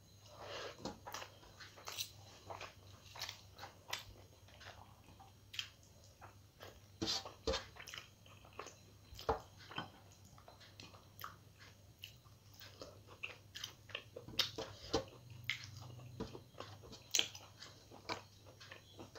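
A person chewing and biting food while eating rice and chicken curry by hand: many short, irregular mouth clicks, smacks and crunches.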